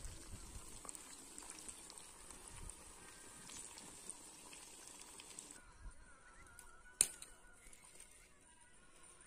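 Fish pieces frying in oil in a kadhai: a soft sizzle with small crackles, which cuts off suddenly about five and a half seconds in. A single sharp click follows a little later.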